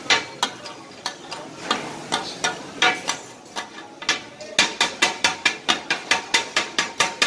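Two flat steel chopping blades striking a large metal griddle as offal is chopped for kata-kat: sharp metallic clacks, uneven at about three a second at first, then a fast steady rhythm of about five a second from a little past halfway, over faint sizzling.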